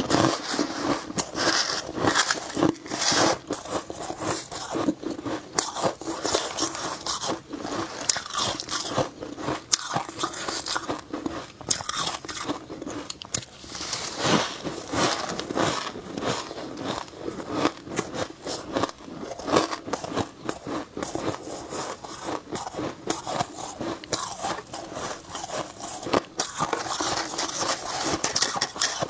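Close-up biting and chewing of freezer frost: many quick, irregular crunches one after another.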